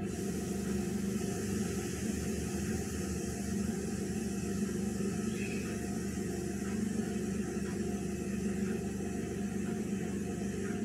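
Halved boiled eggs frying in onion masala in a nonstick pan: a steady hiss over a low hum, with a spatula stirring now and then.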